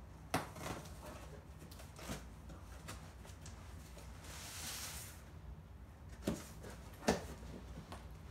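A taped cardboard shipping box being opened: the packing tape is cut and the flaps are pulled open, with a few sharp clicks and knocks and a rasping scrape of tape and cardboard about four seconds in.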